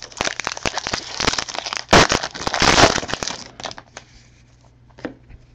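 Foil wrapper of a Bowman Draft jumbo card pack being crinkled and opened by hand. The crackle is loudest between two and three seconds in, then dies away to a few faint ticks.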